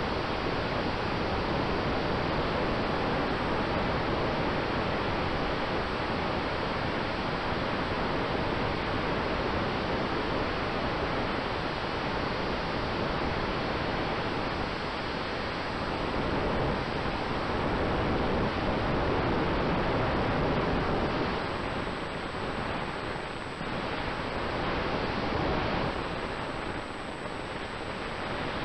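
Steady rushing hiss of airflow over a flying model aircraft's onboard camera microphone, with a faint steady tone underneath. The rush swells for a few seconds midway through and eases again.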